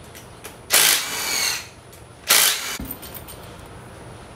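Cordless driver spinning out valve cover bolts on an LS V8: a burst of about a second just under a second in, then a shorter burst about two and a half seconds in, followed by a light knock.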